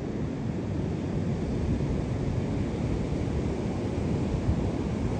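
Wind buffeting the microphone in a steady low rumble, over the rush of ocean surf.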